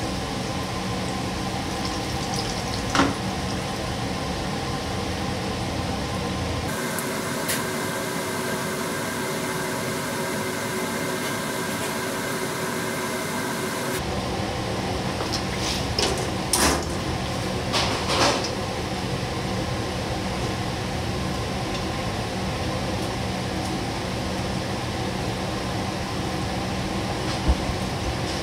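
Cinnamon-roll doughnuts deep-frying in hot oil in a commercial fryer: a steady sizzle over a constant kitchen hum. For several seconds partway through, the sizzle turns brighter and hissier. A few sharp clicks come from utensils.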